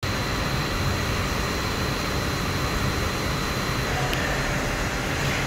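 Steady workshop background noise: a low mechanical hum with hiss, like a running fan or machine, with a faint high whine that stops about four seconds in.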